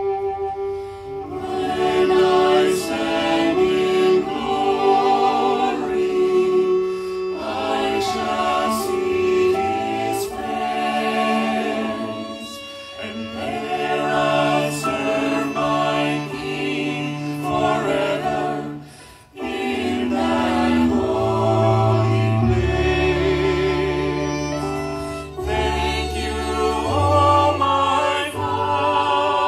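Small mixed choir of men's and women's voices singing a sacred song in parts, accompanied by violin and cello, with long held low notes underneath.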